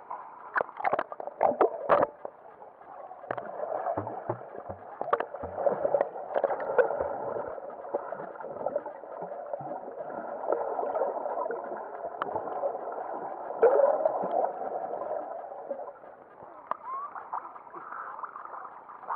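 Sea water splashing around a camera at the surface, with sharp splashes in the first two seconds, then the muffled wash of sound from a camera held underwater.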